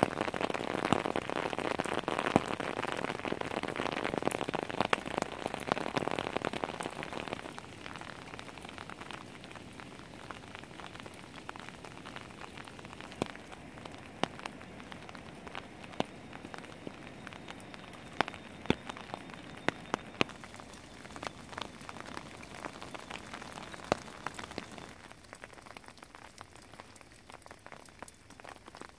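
Rain falling on wet bush: a steady hiss for the first seven seconds or so, then easing to a softer patter with scattered drops ticking.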